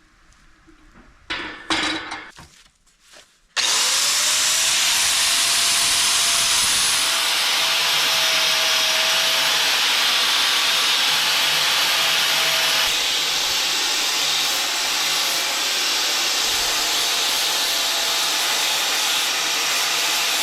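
A few brief knocks of metal being handled, then an electric grinder starts about three and a half seconds in. It spins up to a steady whine and runs continuously, cleaning up metal stock, until it stops near the end.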